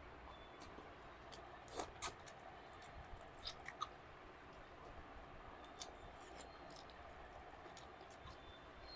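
A person eating with a close microphone: soft chewing and scattered short, wet mouth clicks, the loudest pair about two seconds in.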